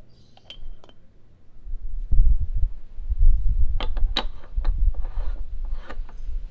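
Metal parts of a stovetop moka pot being assembled: a couple of ringing clinks as the filter funnel drops into the base, then the top chamber is screwed on, with a low rubbing rumble and several sharp metal clicks.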